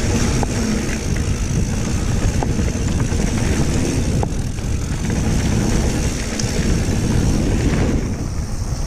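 Wind buffeting an action camera's microphone, with the tyres of a mountain bike rumbling over a dirt trail at speed and a few faint clicks from the bike.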